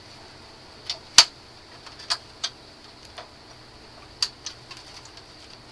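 Xbox 360's plastic casing clips clicking and snapping as the top shell is pried loose with a small screwdriver. One sharp snap about a second in, the loudest, with several lighter clicks after it.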